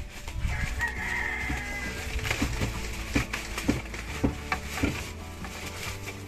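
A rooster crowing once, starting about a second in and held for about a second and a half, over background music with a beat.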